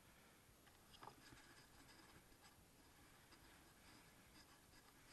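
Near silence, with faint scratchy ticking and clicking starting about a second in, like small handling noise.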